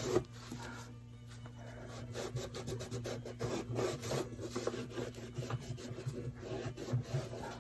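Damp cloth rubbing over the wooden body of an old violin, wiping away excess wood glue, in irregular scrubbing strokes.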